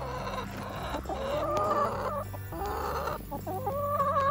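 A flock of chickens clucking and calling: several drawn-out, wavering calls, one after another.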